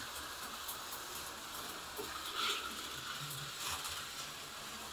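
HO-scale slot car with added magnets running laps on a plastic track: a steady, quiet whir and hiss from its small electric motor and tyres, swelling briefly twice as it passes close by.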